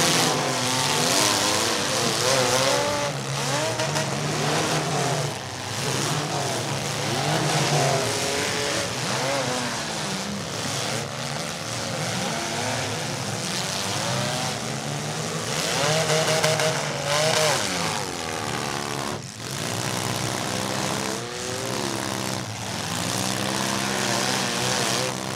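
Several compact demolition derby cars' engines running and revving at once, their pitches rising and falling over one another as the cars push and ram in the dirt.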